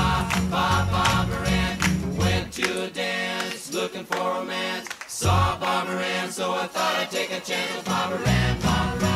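Background music: a song with group singing over a beat. The bass drops out for a few seconds in the middle and comes back near the end.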